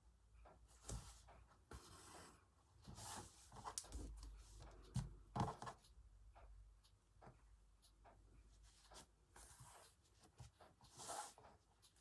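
Faint hand embroidery: several short swishing rasps of thread pulled through fabric, with small ticks of the needle in between.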